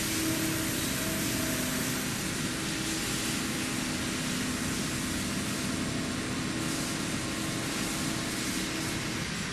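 Large gantry milling machine running: a steady mechanical hum and hiss with a couple of held low tones.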